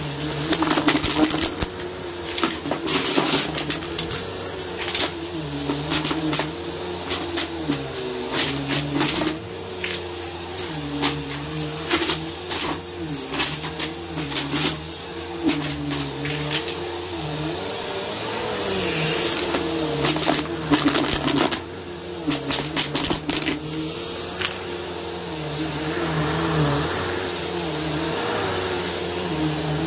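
Bissell upright vacuum cleaner running over a thick rug: a steady motor hum that wavers up and down in pitch, with a thin high whine above it. Coins and bits of debris being sucked up make frequent sharp clicks and crunches, thickest in the first half and again briefly past the middle.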